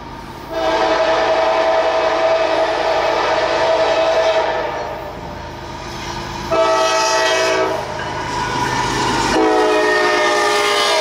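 Freight locomotive's multi-note air horn sounding a long blast, a short blast, then another long blast, the warning sounded as a train approaches a grade crossing.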